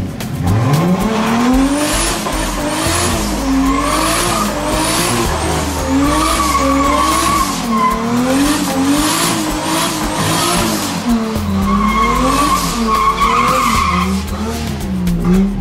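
Isuzu pickup's engine revving hard during a burnout, its pitch climbing at the start and then rising and falling about once a second, while the spinning rear tyre squeals on the paving, loudest midway and again near the end.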